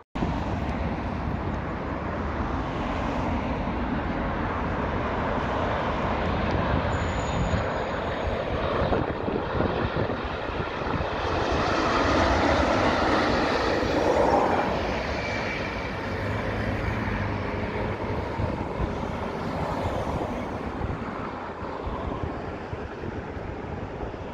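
Boeing 787 jet airliner on final approach with its landing gear down, passing low overhead. The steady rush of jet engines and air swells to its loudest about halfway through, then slowly eases off.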